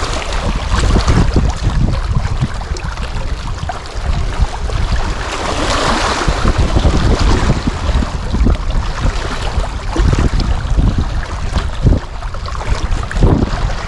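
Strong wind buffeting the microphone in gusts, with a rushing hiss of wind and waves that swells about six seconds in.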